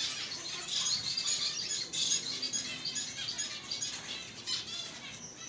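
Zebra finches in breeding cages chirping, many short high calls overlapping in a busy chatter.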